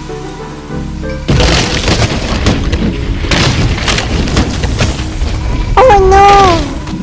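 Background music: steady held tones, then about a second in a sudden loud stretch of booming, crashing hits. Near the end comes a brief high wavering cry that dips and rises in pitch.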